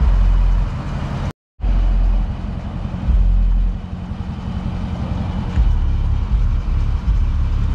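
Dodge Charger's 392 HEMI V8 idling: a steady, deep rumble.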